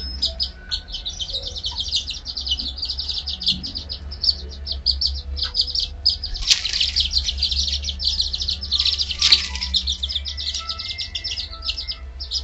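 Young Serama bantam chicks peeping continuously, many rapid high-pitched peeps overlapping. Two louder, harsher outbursts stand out, about six and nine seconds in.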